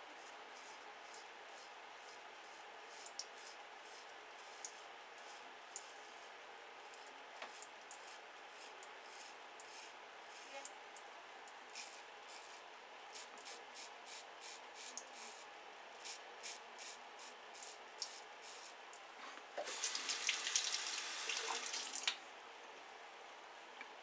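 Turkish shavette's half blade scraping through lathered stubble in short strokes, a quick crackle with each pass. About twenty seconds in, tap water runs for two or three seconds.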